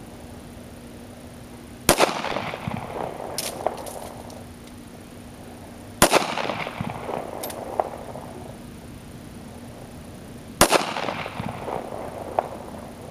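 Kel-Tec P3AT .380 ACP pocket pistol fired three times, slowly, about four seconds between shots, each report trailing off in echo. A fainter sharp click follows the first two shots.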